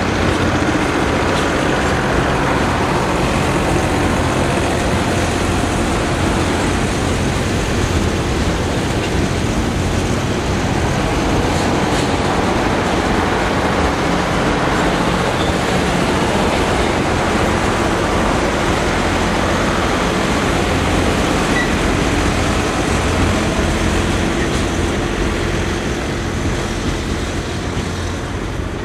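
Freight train of boxcars and refrigerator cars rolling past, a steady rumble of steel wheels on the rails, easing slightly near the end.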